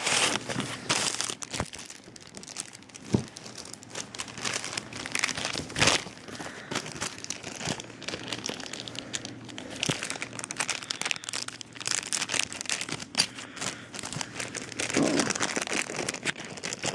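Clear plastic packaging bags crinkling and rustling as they are handled and pulled from their box, with sharp crackles about 3 and 6 seconds in.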